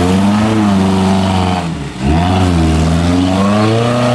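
Small 4x4's engine revving hard as it churns through a deep muddy rut. The revs rise and fall, drop off sharply for a moment about two seconds in, then climb back and hold high.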